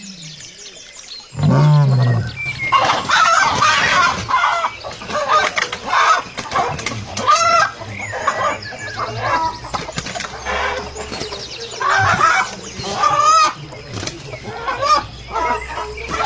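Chickens clucking, with many short calls overlapping, after a single deep call about a second and a half in.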